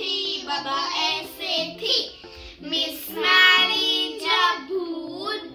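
Young girls singing a Hindi children's rhyme, with music behind the voices.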